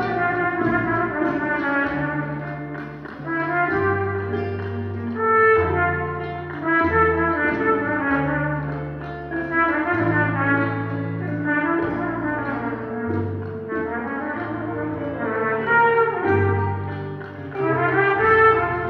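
Live band music with a trumpet playing the lead melody in long held notes over a bass line and accompaniment.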